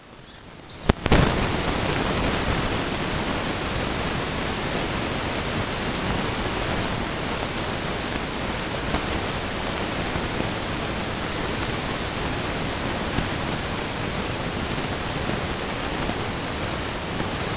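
Loud, steady hiss of static spread evenly over all pitches, switching on abruptly with a pop about a second in and burying any other sound.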